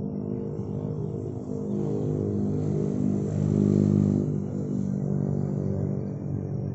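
Diesel locomotive engine running, swelling to a peak about four seconds in and then easing off.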